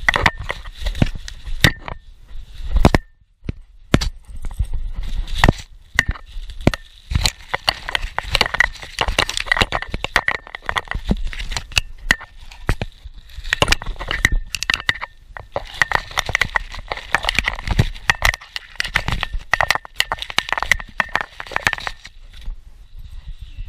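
Bubble wrap crinkling and popping in quick irregular cracks as a Boston Terrier bites and tears at it, heard up close. The cracking thins out near the end.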